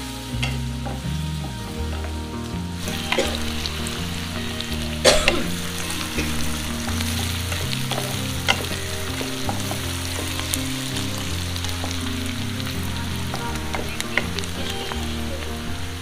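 Chopped onions sizzling in hot oil in a non-stick kadai, stirred with a spatula, with a few sharp knocks and scrapes of the spatula against the pan, the loudest about five seconds in.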